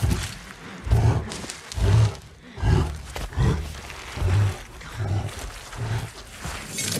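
A grizzly bear's heavy breaths: seven low, deep pulses about a second apart.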